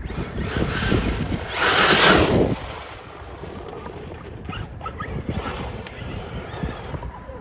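Losi DBXL-E 2.0 electric RC buggy driving over dirt and gravel, with steady crackling tyre noise and a loud rush of spinning tyres and thrown dirt about one and a half to two and a half seconds in, and a softer one near five seconds.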